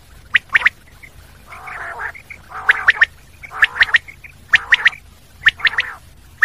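Common quail calling: a three-note whistled phrase repeated about once a second. A lower, rasping noise sounds under most of the phrases.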